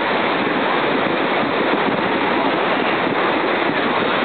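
Ocean surf breaking on the beach with wind buffeting the microphone: a loud, steady noise.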